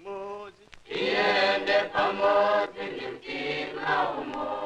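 A choir singing in long held phrases. A single voice leads at the start, and the full group comes in about a second in.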